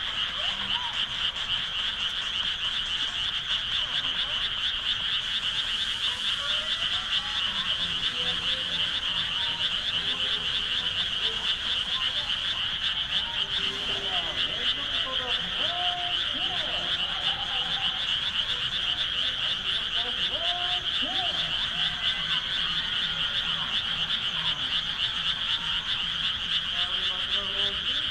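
Dense chorus of many frogs calling at once in rice paddies: a steady, high-pitched pulsing trill of overlapping calls. Scattered short, lower calls sound over it now and then.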